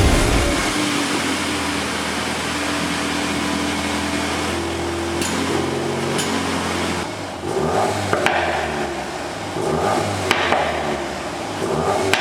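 VW Golf 8 R's 2.0-litre turbocharged four-cylinder with an Akrapovič exhaust, idling steadily, then its pitch shifting up and down from about seven seconds in, with a few sharp clicks.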